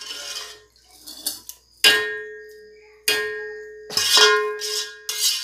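Metal ladle stirring in a metal cooking pot and striking it: three ringing clangs about a second apart.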